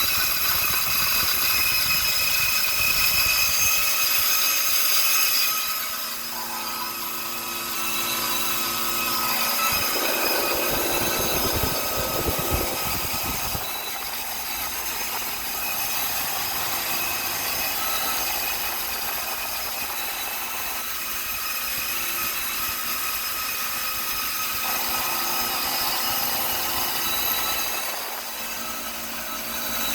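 Copeland compressor running with a steady mechanical hum and whine of several tones, with a rougher, noisier stretch about ten to thirteen seconds in. It is the abnormal running noise of a compressor that also keeps cutting off.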